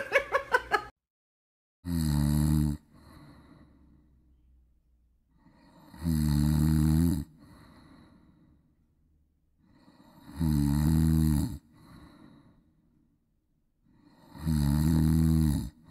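A brief burst of high-pitched squealing at the very start, then a dog snoring in its sleep: four deep snores about four seconds apart, each about a second long and followed by a softer breath.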